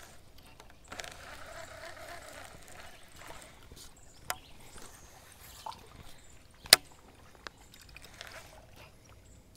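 Faint water lapping against the hull of a small fishing boat, with a few sharp clicks; the loudest click comes about two-thirds of the way through.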